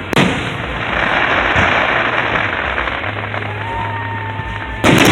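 Aerial fireworks: a sharp shell burst just after the start, then a dense crackling hiss for a couple of seconds, and a double bang near the end. A thin wavering whistle runs through the middle.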